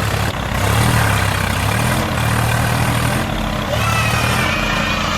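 Tractor engine running steadily with a low, even hum, dipping briefly now and then. Faint high gliding tones come in near the end.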